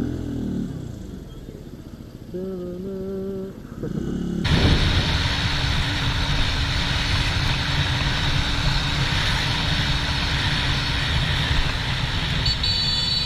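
Motorcycle ride on a helmet or bike camera: engine and heavy wind noise, starting suddenly about four and a half seconds in after a short stretch of transition sounds with a few steady tones. A high electronic beeping starts near the end.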